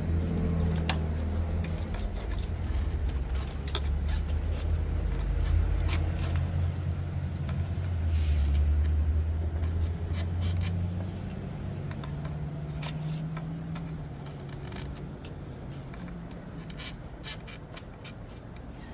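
Low engine rumble that fades away over the first ten seconds or so, under scattered light clicks and metallic taps of hands and tools working hoses loose in an engine bay.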